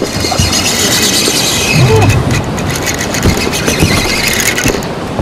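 Fishing reel drag squealing as a hooked amberjack pulls line off, strongest in the first couple of seconds and easing after that.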